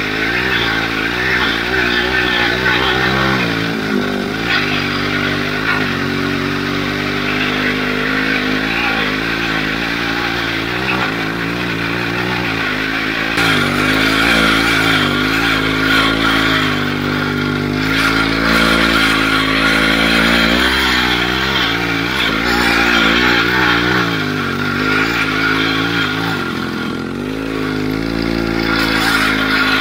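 Two-stroke chainsaw engine of a homemade all-wheel-drive motorcycle running under load while riding, its pitch rising and falling continuously as the throttle is worked.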